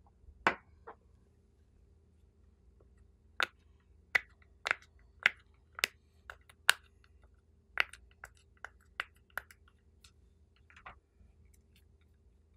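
Silicone pop-it bubbles on a bunny-shaped fidget case being pressed, giving a run of about a dozen sharp, separate pops, then a short rustle near the end.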